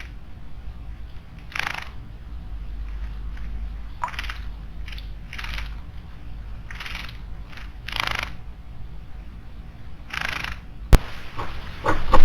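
A small bird bathing in a stone water basin: a dozen short, irregular splashes and flutters. A single sharp click about eleven seconds in.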